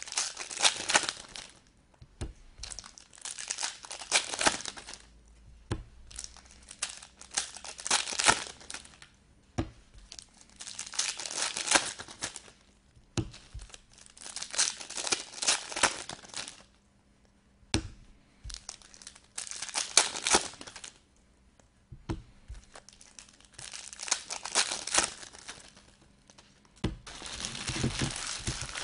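Foil packs of football trading cards being torn open and crinkled in the hands, in repeated bursts every couple of seconds, with a few sharp taps in between.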